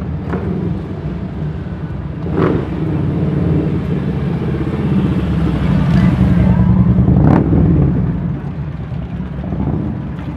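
Motorcycle engines running at a rally, a steady low rumble that swells louder about halfway through and then fades. Two short sharp blips cut through it, one near the start and one past the middle.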